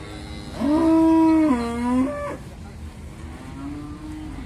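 Beef cattle mooing: one loud, long low moo starting about half a second in and lasting nearly two seconds, its pitch stepping down partway through. A fainter, lower moo follows near the end.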